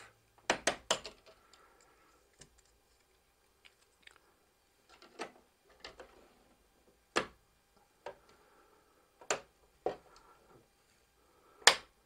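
Plastic light switch cover plate being handled and snapped back onto the switch: a series of sharp, irregular clicks and snaps, three in quick succession about half a second in and the loudest near the end.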